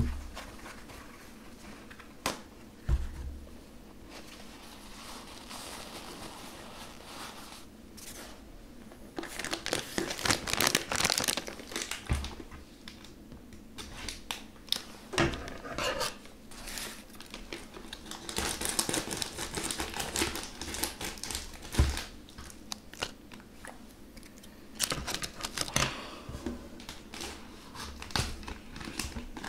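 Plastic wrapper of a gummy hamburger candy crinkling and tearing in repeated bursts as it is handled and opened, with a few sharp knocks in between.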